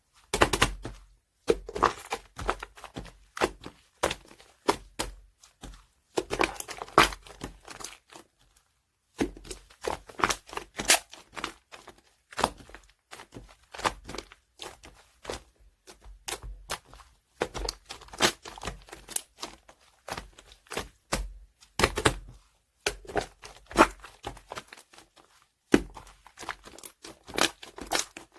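Slime being squeezed, stretched and folded by hand, giving dense, irregular crackling clicks and pops, with a short pause about a third of the way through.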